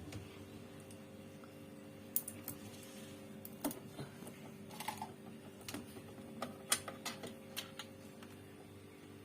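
Scattered light clicks and taps from handling, irregular and about a dozen in all, over the steady hum of a running Sharp two-door refrigerator.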